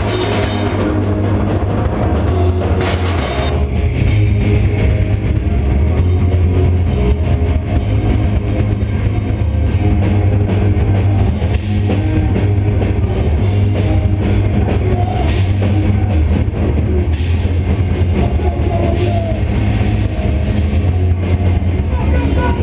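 Loud rock music with a drum kit and guitar playing continuously.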